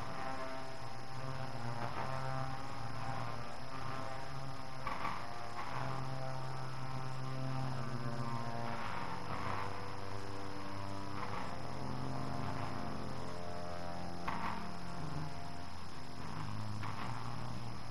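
Slow, droning music of long held chords over a low bass line that shifts every second or two, played back from a cassette tape with steady tape hiss and a faint constant high whine.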